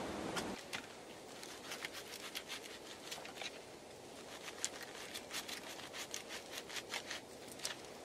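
Kitchen knife cutting a peeled raw onion on a sheet of foil: a run of irregular, crisp little clicks and crunches. It starts about half a second in, after a short stretch of steady campfire hiss.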